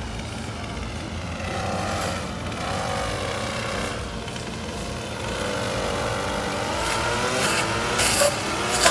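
An engine running steadily, its pitch slowly rising over the last few seconds, with a couple of sharp knocks near the end.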